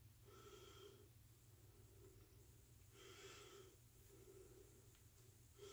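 Near silence with a few faint breaths, soft airy puffs through the nose.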